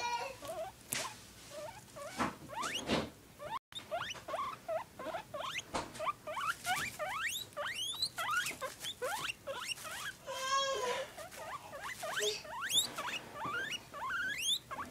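Guinea pig squeaking: a long run of short rising squeaks, with a longer, fuller call about ten seconds in.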